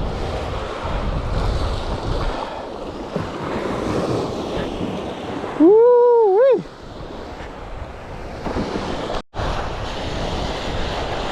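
Ocean surf washing in, with wind buffeting the microphone. About halfway through, a man lets out a loud whoop, and the sound cuts out for an instant near the end.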